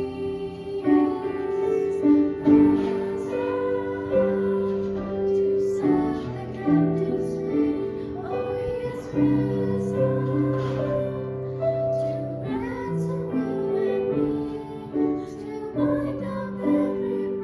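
Voices singing a slow sacred song in held, sustained notes, with piano accompaniment.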